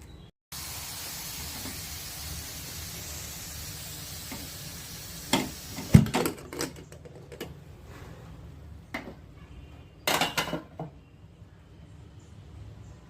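A steady hiss from a cooking pot that slowly fades over about five seconds, then a series of knocks and clatters of metal kitchen utensils against the pot, the loudest about six seconds in and a quick cluster near ten seconds.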